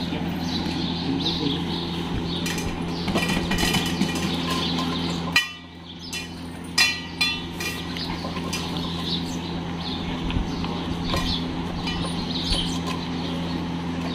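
Dogs eating from stainless steel bowls, the metal bowls clinking and scraping on the tiled floor over a steady low hum, with a couple of sharper knocks midway.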